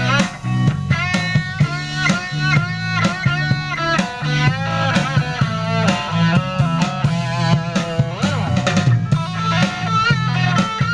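Band music with a steady beat: a bending melody line over guitar, bass and drum kit.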